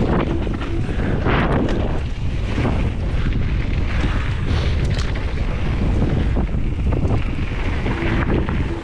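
Steady, loud wind rumble over the microphone of a camera on a moving mountain bike, with scattered clicks and rattles.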